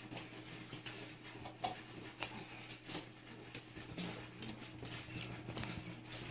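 Cats crunching dry kibble: faint, irregular crisp crunches and clicks over a steady low hum.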